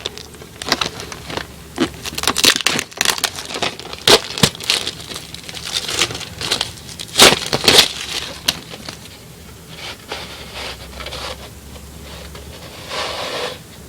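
Plastic VHS case being handled and opened: irregular clicks, snaps and rustling.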